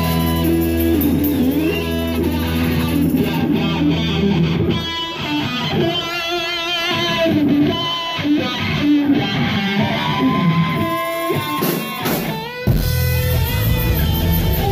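Live rock band with electric guitar. The low bass notes drop out about five seconds in, leaving the guitar playing bending, wavering lead lines, and the full band crashes back in loudly near the end.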